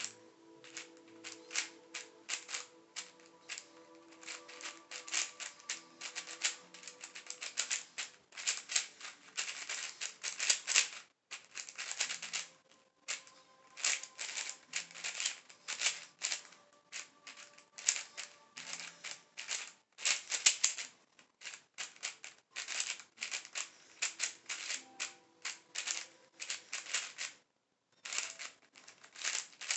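MGC 4x4 speed cube being turned rapidly by hand: fast runs of plastic clicking and clacking from the layer turns, in bursts broken by brief pauses.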